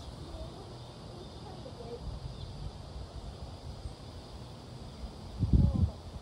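Storm wind buffeting the microphone in a low, steady rumble, with a strong gust hitting it about five and a half seconds in.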